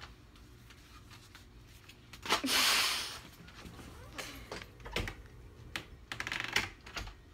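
Paper being handled: rustling and crinkling with scattered sharp clicks, and one loud rush of rustle about two seconds in.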